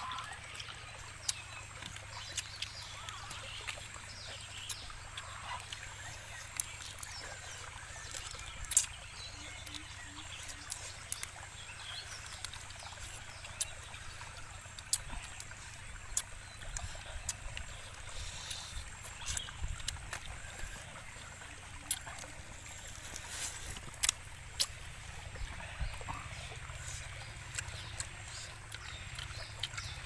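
Close-up eating sounds of people picking meat off small grilled bird bones with their fingers and chewing: scattered sharp clicks and smacks, several louder ones near the middle, over a steady faint wash of flowing stream water.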